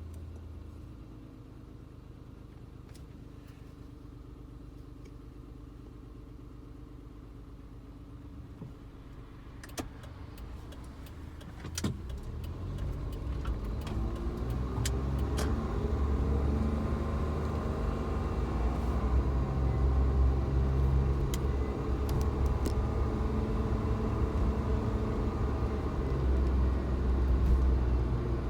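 Suzuki Jimny engine idling steadily, then after a couple of sharp clicks about twelve seconds in, pulling away and rising in pitch as it accelerates. It then settles into steady driving noise.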